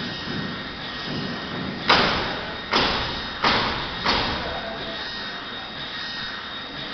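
YD-A2b UV flatbed inkjet printer running as it prints: a steady machine whir with a faint high whine. Four sharp thuds come about two to four seconds in, each fading out over about half a second.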